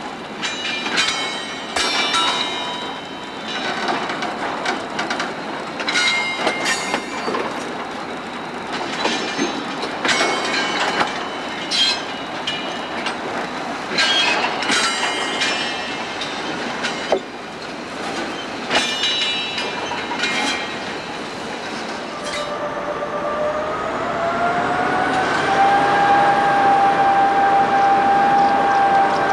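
Freight wagons rolling slowly over yard track, with repeated clanks and high-pitched wheel squeals. About three-quarters of the way in, the SJ T44 diesel shunting locomotive's engine note comes up, rising in pitch and then holding steady as it gets louder.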